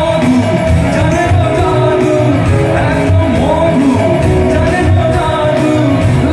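Live band playing loud through a PA: a male lead singer over guitars, bass, keyboard and drums.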